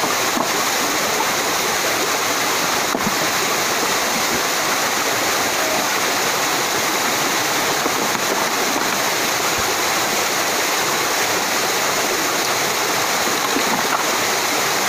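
Waterfall pouring over stepped rock ledges into a pool: a steady, even rush of water.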